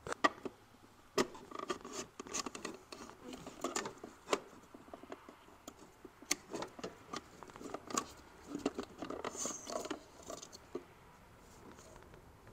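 Irregular plastic clicks, scrapes and rattles as a BMW E46's DME engine computer is worked loose from its plastic electronics box by gloved hands, with rubbing against the housing and wiring. The handling sounds thin out near the end.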